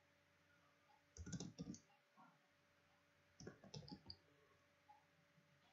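Computer keyboard being typed on: two short, quiet runs of keystrokes, one about a second in and another past three seconds.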